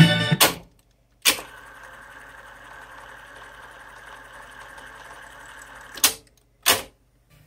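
Technics RS-676 cassette deck: music cuts off with a clunk of the stop key, then another key clunk and the transport rewinds the cassette with a steady whirring hiss for about five seconds, ending with two more key clunks near the end.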